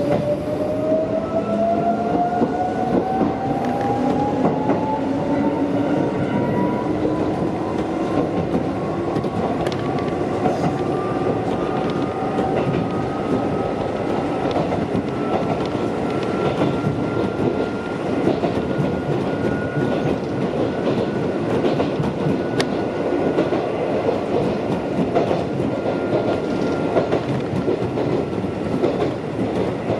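Mizuma Railway electric train heard from inside the front car, its motors whining in a tone that climbs steadily for about twenty seconds as the train gathers speed, then levels off, over the rumble of wheels clacking on the rails.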